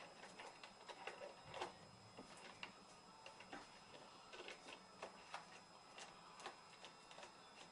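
Faint, irregular clicks and taps of rifle parts being handled and fitted together by hand during reassembly of a Daisy Powerline 1000 pellet rifle, with a slightly louder knock about a second and a half in.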